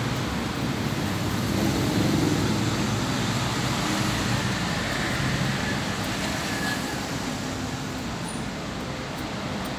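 Steady rumble and hiss of road traffic, swelling a little about two seconds in and easing off near the end.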